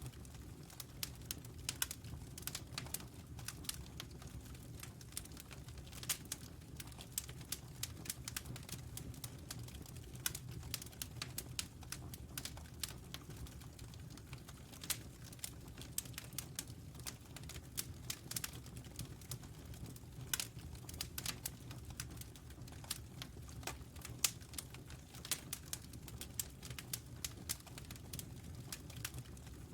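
Wood fire crackling, with irregular sharp pops and snaps several times a second over a steady low rumble.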